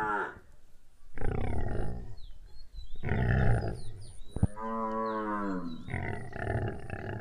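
Cattle mooing four times: long, hoarse calls about a second or more each, one of them a clearer call that falls in pitch.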